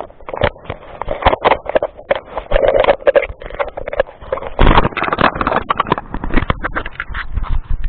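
Handling noise on a camera: fingers and clothing rubbing and knocking against its body and microphone, a dense, loud clatter of scrapes and knocks that cuts off suddenly at the end.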